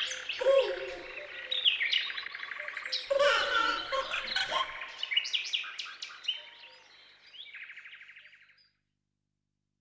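Birds chirping and trilling, dense at first and thinning out. The sound fades and stops completely shortly before the end.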